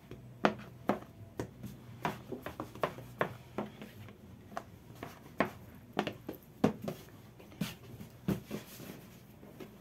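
Plastic bench scraper cutting bread dough against a wooden worktable, with dough pieces set down by hand: irregular short knocks and taps, sometimes several in quick succession.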